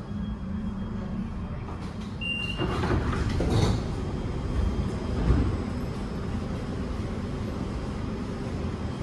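CAF metro train's sliding passenger doors opening at a station stop: a short high beep a little over two seconds in, then a rush of sliding and air noise lasting about a second, and a thud a couple of seconds later, over the stopped train's steady low hum.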